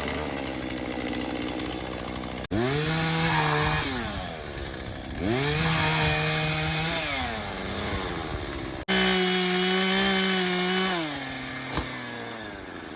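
Chainsaw engine running, revving up and dropping back about three times, in short clips joined by two abrupt cuts.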